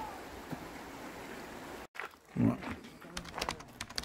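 Shallow river flowing over stones with a steady rush, cut off sharply just before halfway. About half a second later comes one short, loud, low vocal sound, followed by a string of sharp clicks.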